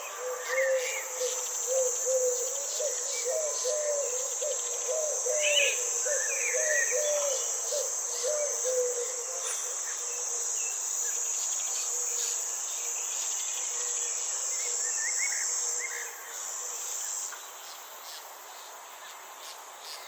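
Garden ambience: a steady high-pitched insect chorus, crickets, drones on and stops about seventeen seconds in. Birds chirp now and then over it, and for the first nine seconds a bird repeats a quick low warbling note.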